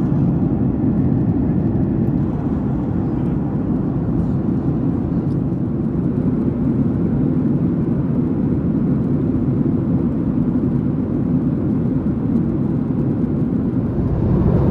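Steady cabin noise of a Boeing 737-800 in flight, the engines and rushing air heard from a window seat as an even low rumble.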